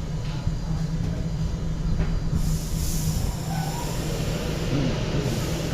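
Train running at a station: a steady low hum with a hissing rush that comes in about two seconds in and fades near the end.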